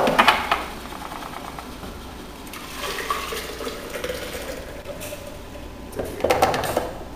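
Fresh vegetable juice poured from the juicer's juice container into a glass pitcher, with knocks and clatter of the containers being handled at the start and again near the end.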